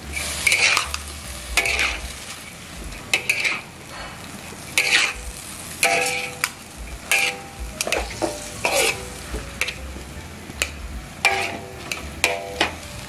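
Rice vermicelli being stir-fried in a wok: a steady sizzle, with a metal ladle scraping and tossing the noodles against the wok in repeated uneven strokes about once a second.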